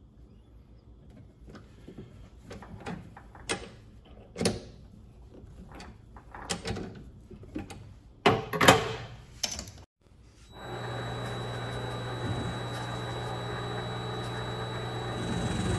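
Irregular knocks and clunks of metal parts and tools being handled. About eleven seconds in, the Vevor MX 400 mini lathe's motor starts and runs steadily with a low hum and a thin high whine.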